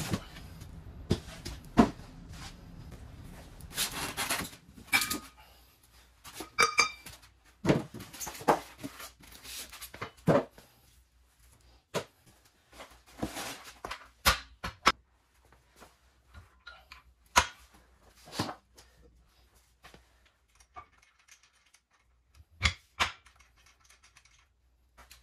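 Cardboard packaging sliding, scraping and rustling as a boxed steel floor jack is unpacked, with scattered sharp knocks and clicks from the metal jack and its parts being handled and the handle being fitted.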